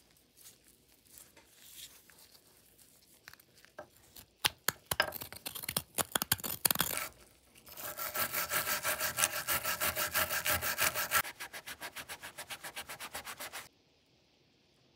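A run of sharp clicks and knocks, then rapid back-and-forth scraping strokes, about five a second. The strokes are loud for about three seconds, continue more softly for a couple more, and stop abruptly.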